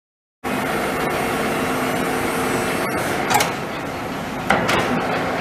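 Nardini ND-1540E gear-head engine lathe running, a steady mechanical hum and whine from the spindle drive, with two short knocks about three and four and a half seconds in.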